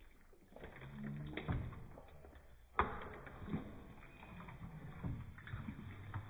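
Spatula stirring chunks through thick, sticky coconut caramel (lolo) in a bowl: wet squelching and scraping, with one sharp knock against the bowl nearly three seconds in.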